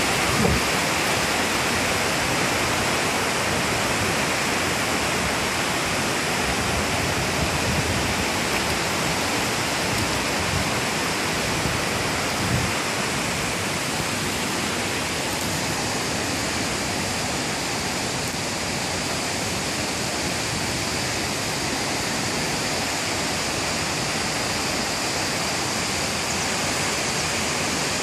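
Waterfall: a steady, loud rush of falling water, with a couple of brief low bumps, one about half a second in and one near the middle.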